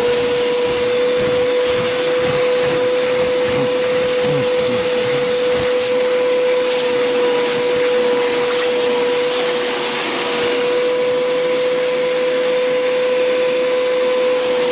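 Hoover Power Scrub Deluxe carpet cleaner running steadily with its upholstery tool: a constant motor whine over rushing suction noise.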